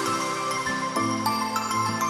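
Background music: pitched notes that change about every half second, with light chiming tones.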